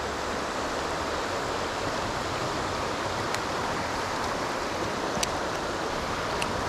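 Steady rush of a shallow, fast-flowing river running over rocks in white water, with a few faint clicks.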